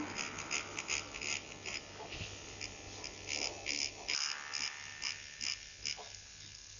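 Dr.Pen Ultima A8S microneedling pen buzzing faintly at its lowest speed, in short repeated bursts about two to three times a second.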